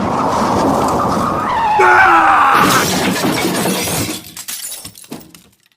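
Car crash sound effect: scraping noise with a couple of falling screeching tones, then glass shattering about two and a half seconds in, followed by scattered pieces clinking and settling as it dies away.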